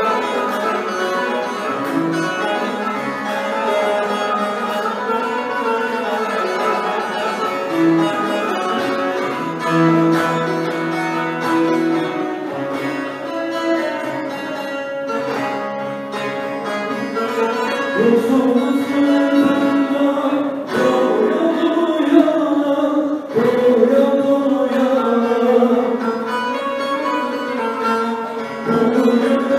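A bağlama (saz), the Turkish long-necked lute, being played. A little past the halfway point a man starts to sing along to it.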